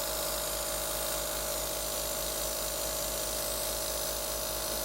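A nebulizer's small air compressor running steadily, driving an airbrush that hisses as it sprays water: an even hiss over a steady motor hum.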